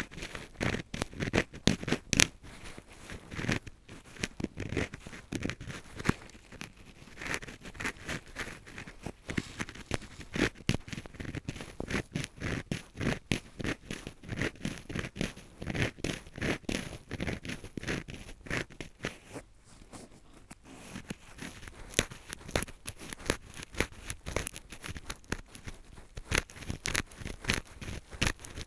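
Drill-screw (spiral) earpick scraping and rubbing inside an ear, close to the microphone, in quick irregular strokes several times a second, with a brief pause about twenty seconds in.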